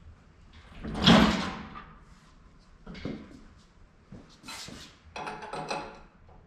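Steel sawmill parts being handled during assembly: a loud clank and scrape about a second in, a couple of shorter knocks, then a ringing metal scrape near the end.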